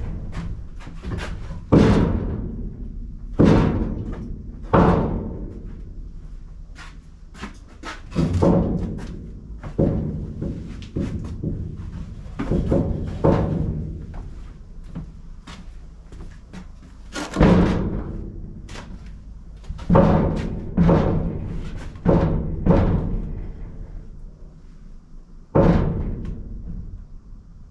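Irregular heavy thuds and knocks, about one every one to two seconds with a few pauses, each ringing on briefly. This is wooden shelf boards being knocked into place on a lumber shelf frame inside a steel shipping container.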